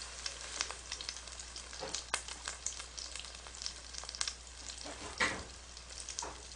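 Egg-battered pollock fillets frying in hot oil, a steady sizzle with constant fine crackling. A few louder taps break in as the pieces are turned with wooden chopsticks, the strongest about five seconds in.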